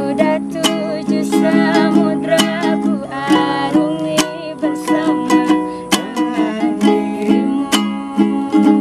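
Ukulele strummed in a steady rhythm, with a woman's voice singing along over it.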